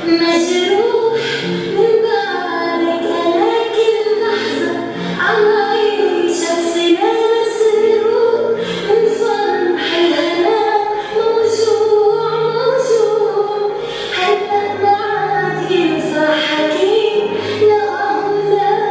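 A song: a woman singing a melody over instrumental backing.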